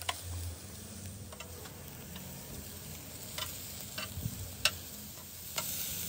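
Shrimp sizzling faintly on a charcoal grill's metal grate, with a few sharp clicks and pops scattered through.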